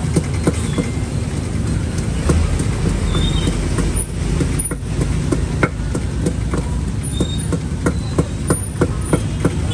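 Busy street ambience: a steady low rumble of traffic with frequent sharp clicks and knocks, and a few brief high chirps.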